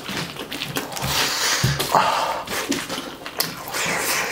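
Close-up mukbang eating sounds: wet chewing and lip smacking with the squish of a bare hand mixing rice, irregular crackles and clicks.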